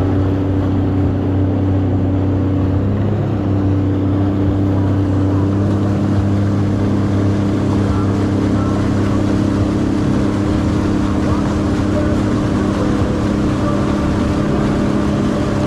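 Jet ski engine running steadily under way, its note stepping up slightly about three seconds in.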